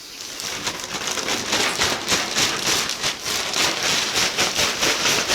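Dry rabbit feed being handled: a dense, irregular crackling rustle made of many small clicks, like a shower of tiny impacts.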